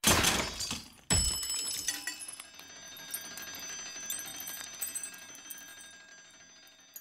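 A metal twin-bell alarm clock hits a hard surface twice, about a second apart, and comes apart; its bells ring on after the impacts and slowly fade, with small clicks from loose parts scattering.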